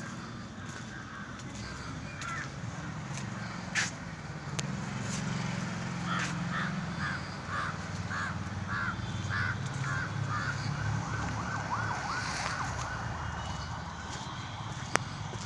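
A bird calling a long series of short, evenly spaced notes that start a few seconds in and come faster near the end, over a low steady rumble, with a couple of sharp clicks.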